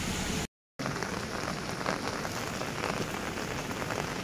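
Heavy rain falling on wet ground, a steady hiss dotted with the ticks of many drops. The sound cuts out completely for a moment shortly after the start, then the rain carries on.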